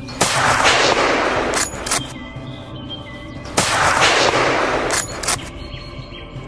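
Two gunshots about three and a half seconds apart, each ringing on for more than a second and each followed by two quick sharp clicks, over background music.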